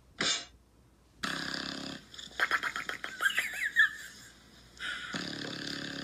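A bulldog snoring in its sleep: two long snores, with a run of clicks and short high squeaks between them.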